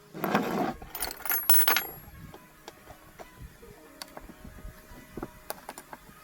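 Small metal engine parts being handled on a workbench: a brief scraping rustle, then a few sharp ringing metallic clinks within the first two seconds, followed by light scattered ticks.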